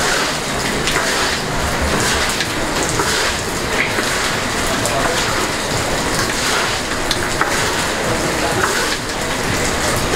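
Heavy rain falling steadily, with a few light ticks scattered through it.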